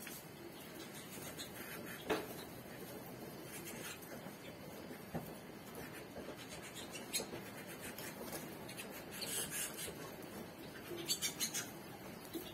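Red-factor canaries moving about their wire cages: faint scratching and shuffling with scattered light clicks, the sharpest about two seconds in and a quick run of clicks near the end.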